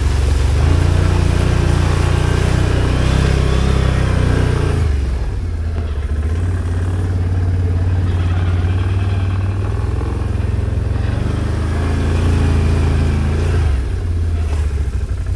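Can-Am Outlander ATV's V-twin engine running on the trail. It pulls under throttle for the first few seconds, eases off about five seconds in, then picks up again and eases off near the end.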